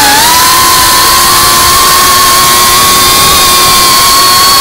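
FPV quadcopter's brushless motors and propellers whining at a steady pitch over a rush of wind noise, heard from the drone's onboard camera. The pitch dips briefly at the start, then holds steady and creeps slightly higher.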